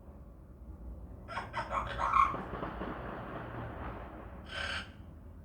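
Pet parrot making a quick run of about six clicks, then a long raspy hiss, and a short call near the end.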